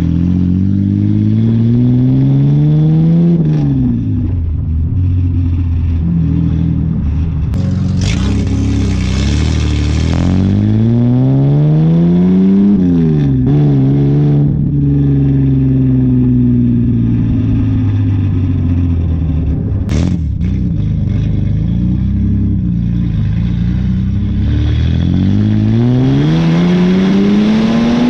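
2001 Ford AU Falcon drift car's engine and exhaust on the move. It revs up through the gears, with the pitch climbing and then dropping sharply at a shift about three seconds in and again about thirteen seconds in. It then falls off slowly and climbs again near the end. Wind noise on the side-mounted microphone, with a burst of hiss about eight seconds in.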